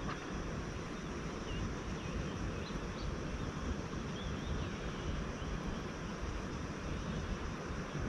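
Wind buffeting the microphone as a steady low rumble, with a few faint bird chirps in the middle.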